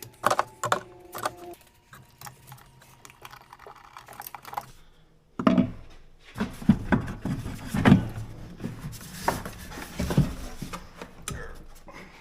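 Hand tools and metal engine parts clinking and knocking as the truck's air intake and turbo are taken apart; a metal piece rings briefly near the start, and heavier knocks and thuds come from about halfway through.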